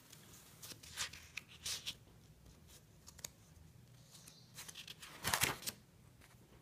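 Paper rustling as a spiral-bound sketchbook's page is handled and turned: a few brief rustles, then a louder one about five seconds in as the page turns over.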